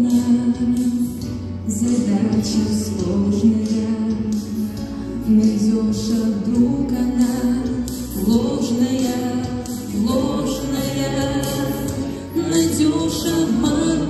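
A man and a woman singing a slow song together into handheld microphones over musical accompaniment, in long held phrases.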